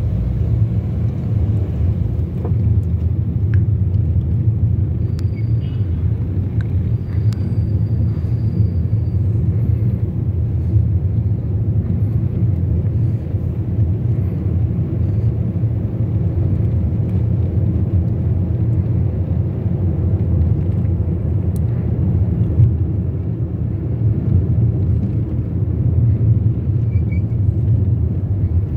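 Steady low rumble of a car driving, its engine and tyres heard from inside the cabin.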